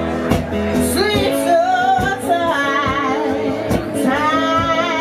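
A woman singing a song with a band of guitar and drums. Her voice comes in about a second in with long, wavering held notes, over a steady drum beat.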